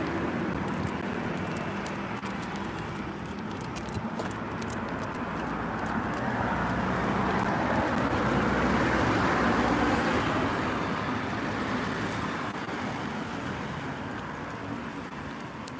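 Road traffic noise: a vehicle's rushing sound that swells to its loudest about nine seconds in, then slowly fades.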